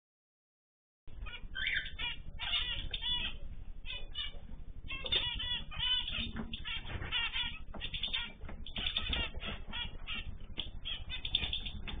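Small aviary finches, zebra finches among them, chirping and calling busily, with many short overlapping call notes and wings fluttering now and then. The sound is absent for about the first second, then starts abruptly.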